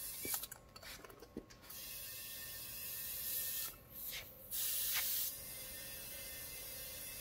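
Compressed air hissing through a dial-gauge inflator chuck into an ATV tyre, refilling it after a string-plug puncture repair. A few small clicks at the start as the chuck is pressed onto the valve. The hiss cuts out briefly about half a second in and again near four seconds, comes louder around five seconds, then settles to a steadier, quieter hiss.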